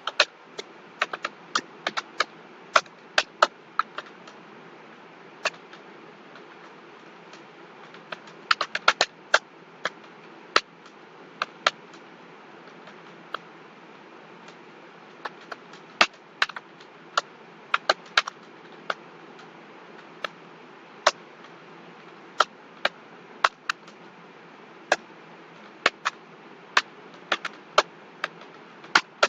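Computer keyboard keystrokes, irregular and fairly sparse: single clicks and short quick runs separated by pauses of up to a few seconds, over a steady faint hiss.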